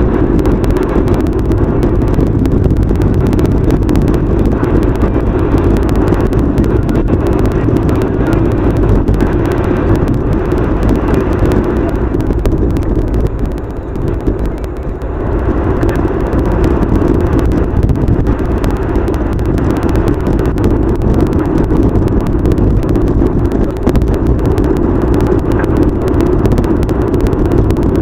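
Steady road and engine noise heard from inside a car driving at highway speed, dipping briefly about halfway through.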